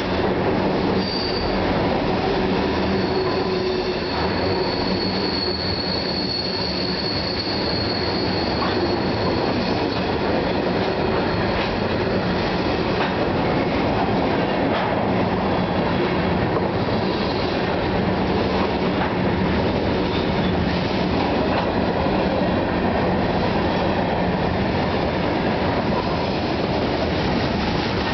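Freight train of hopper and tank cars rolling past at close range: a steady loud rumble of steel wheels on rail, with a high thin wheel squeal through the first several seconds.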